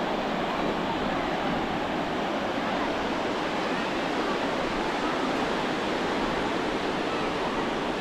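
Ocean surf washing steadily onto the beach, with faint voices of people on the beach mixed in.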